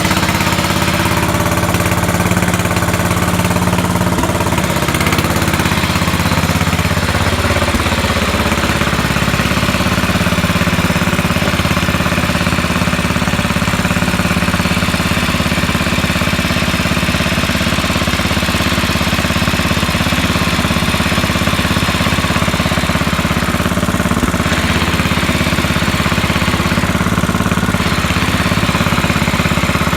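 1968 Sears Super 12 garden tractor's engine idling steadily while still cold: a cold-blooded engine that has just been coaxed through a hard start.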